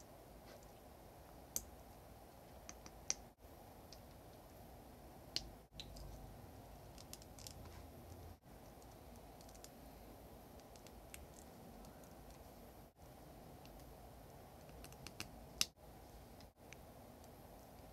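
Small Bandai HG Gunpla plastic model kit parts clicking and snapping as they are fitted together by hand: scattered sharp clicks over a steady low hiss, the loudest near the end. The hiss drops out briefly several times.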